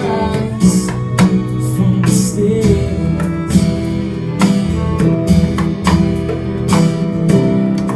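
Song music between sung lines: guitar playing with a drum beat hitting about twice a second.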